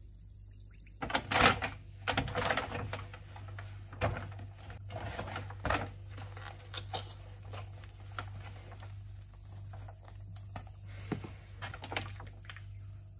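Paper shopping bag rustling, with irregular clicks and taps as small cardboard boxes are taken out and handled. A steady low hum runs underneath, and the first second is quieter.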